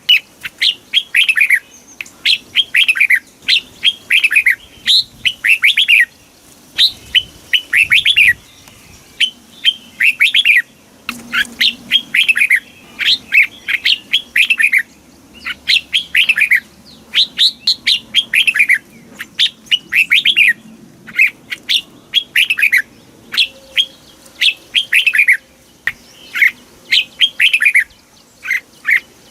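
Red-whiskered bulbul singing: short phrases of quick, falling whistled notes, repeated every second or so with brief pauses.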